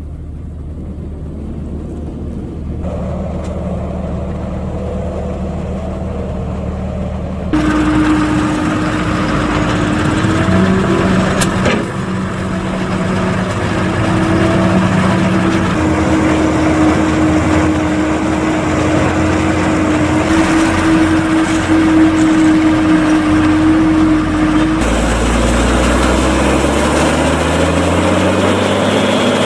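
Diesel engines of heavy farm machinery, a Fendt tractor unloading a forage wagon and a JCB wheel loader pushing chopped corn silage, running under load. The sound changes abruptly several times, with a steady drone through the middle.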